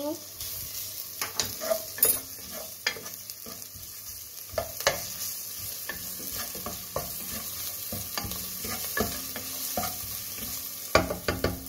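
Chopped onions and garlic sizzling in oil in a non-stick pot while a wooden spatula stirs them, with irregular clicks and scrapes of the spatula against the pot, several in quick succession near the end.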